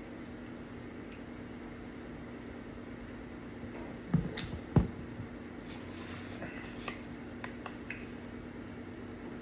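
Close-up mouth sounds of someone eating: wet chewing and smacking, with a few sharper smacks about four to five seconds in, over a steady low hum.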